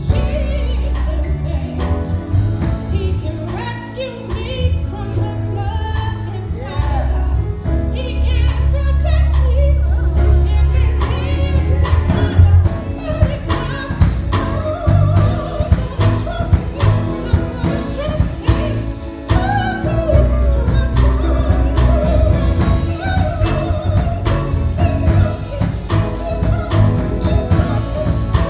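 Church choir singing a gospel song with band accompaniment and a heavy bass line.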